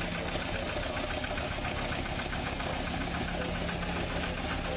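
Small internal-combustion narrow-gauge locomotive engine running steadily with a fast, even beat.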